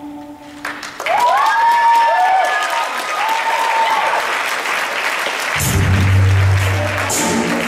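Audience applauding, the clapping starting about a second in, with whooping cheers over it for the first few seconds. Bass-heavy music comes in under the applause later on.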